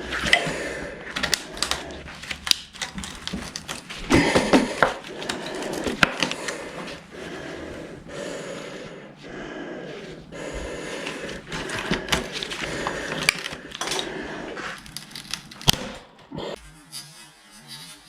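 Irregular clattering knocks, clicks and scraping of a Victorinox Hunter XS pocketknife being forced during a destruction test, its stainless blade already bent. The noise stops about a second and a half before the end.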